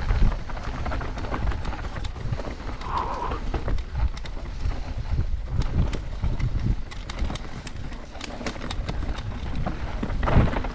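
Full-suspension mountain bike descending a dirt and rock singletrack, heard from a camera mounted on the rider: a low rumble of wind buffeting and tyres rolling over the ground, with frequent clicks and rattles from the bike over bumps.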